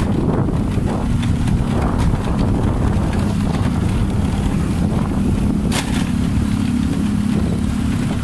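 Motorcycle engine running at steady riding speed, a constant low hum under wind rushing over the microphone. A single short click comes about six seconds in.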